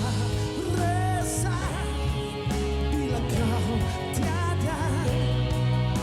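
A band plays a pop-rock song with a steady bass line and chords under a singer's voice, which wavers with vibrato on held notes.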